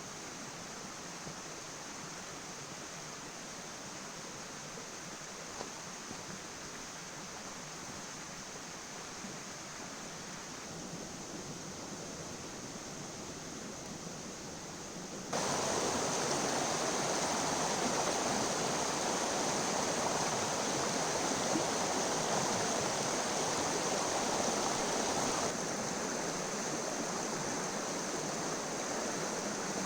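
River water rushing steadily, a constant hiss-like wash with no distinct events; it jumps louder about halfway through and eases back a little near the end.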